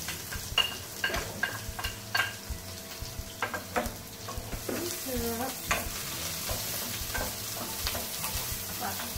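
Chopped onion and garlic sizzling in hot olive oil in a frying pan, with a wooden spoon scraping and tapping as the onion is pushed off a plate into the pan and stirred. The sizzle grows louder about halfway through.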